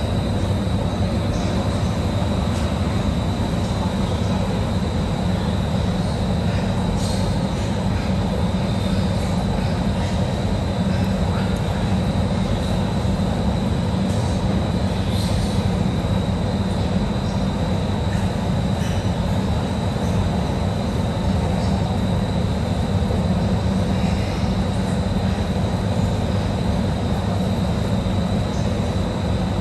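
Steady mechanical rumble with a thin high-pitched whine running over it and a few faint clicks, unchanging throughout.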